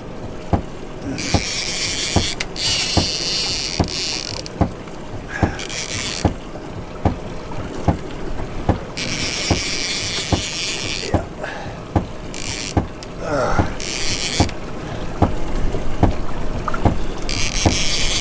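Fishing reel during a fight with a hooked hybrid striped bass: a steady mechanical clicking of a bit over one click a second while the reel is worked, broken several times by bursts of high hissing buzz as the drag slips and the fish pulls line out.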